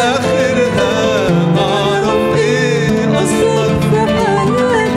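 An Arabic Christian hymn sung by a man and then a woman over plucked string accompaniment.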